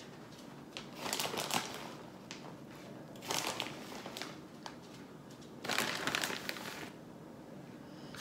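Plastic bag of shredded cheese crinkling as it is tilted and shaken out, in three short bursts of about a second each.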